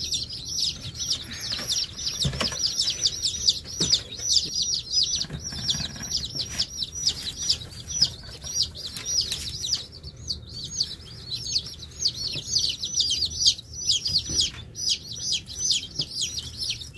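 A brood of baby chicks, with a few ducklings among them, peeping continuously: many short high chirps overlapping, with a few light knocks now and then.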